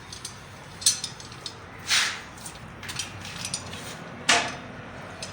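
Sharp metallic knocks and clinks from hand tools, with louder strikes about one, two and four seconds in and lighter ticks between them.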